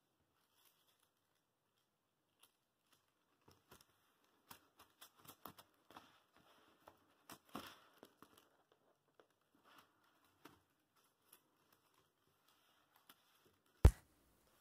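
Faint paper rustling and crinkling with scattered small clicks as a layered cut-paper piece and a large sheet of paper are handled on a table. A single sharp thump, the loudest sound, comes about a second before the end.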